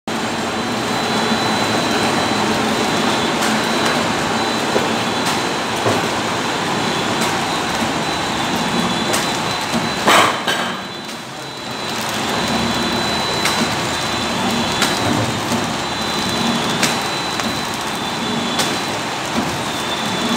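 Horizontal flow wrap packing machine running: a steady mechanical clatter with a thin high whine and sharp ticks every second or two. A loud knock about halfway through, after which the noise briefly dips.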